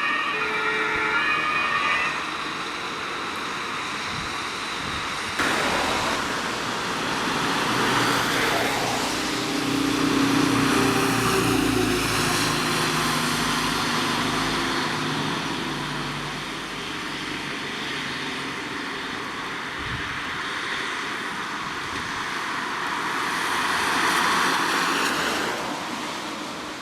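Fire engines driving past on an emergency run: a two-tone siren for the first two seconds or so, then the engines and tyre noise of heavy vehicles passing, swelling and fading a few times.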